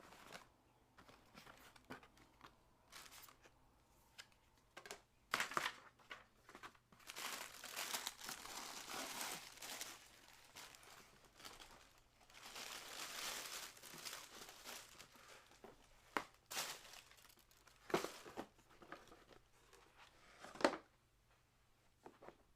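Paper packaging crinkling and rustling as a boxed pair of soccer cleats is unwrapped by hand. There are two longer stretches of steady crinkling and, between them and after, short rustles and a few sharp handling taps.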